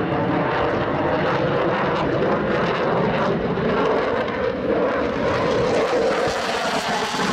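Dassault Rafale fighter jet in flight, its twin Snecma M88 turbofans giving a loud, steady jet roar with a layered hum of several tones through it.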